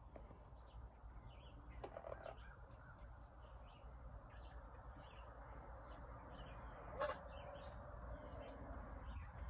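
Faint small birds chirping again and again in the background, with one short, louder lower call about seven seconds in.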